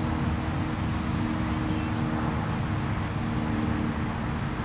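Steady low background rumble with a faint hum, like distant road traffic.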